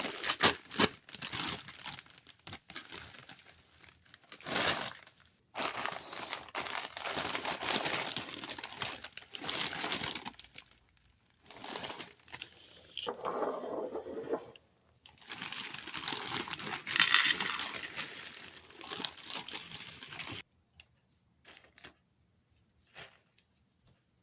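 Dachshund ripping into a cardboard cereal box and its inner bag, in irregular bursts of crinkling and tearing. The bursts stop about 20 seconds in, leaving only a few faint ticks.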